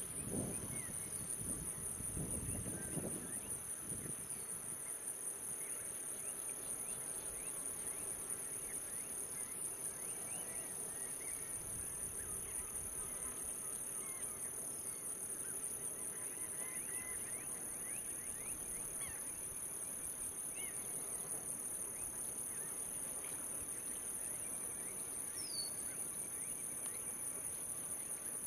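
Steady, high-pitched drone of a summer insect chorus, with scattered short chirps over it and some low muffled sounds in the first few seconds.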